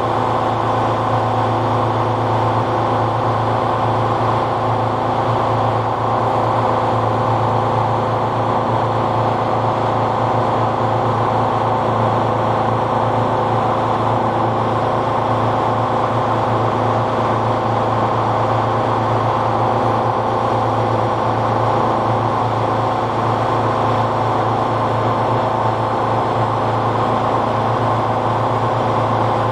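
Tuxing twin-cylinder high-pressure air compressor running steadily while filling an air bottle: a constant low hum with a fast pulse from the pistons, under a steady higher mechanical whine.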